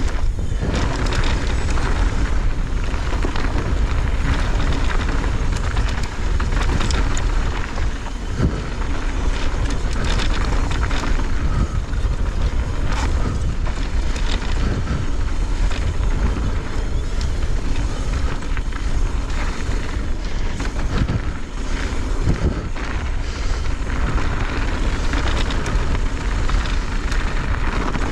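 Pivot Firebird mountain bike descending a dirt trail at speed: steady wind rush on the microphone and tyres running over dirt, with frequent small clatters and knocks from the bike over bumps.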